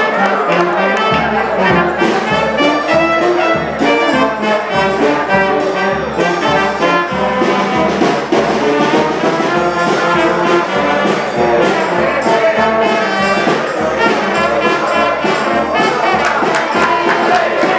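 Background music: a brass-led orchestral track over a steady beat.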